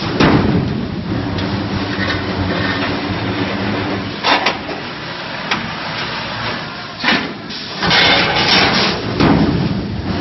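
CNC stirrup bending machine running: a steady motor hum with sharp clanks about four and seven seconds in, and a louder stretch of mechanical noise near the end as it works the rebar.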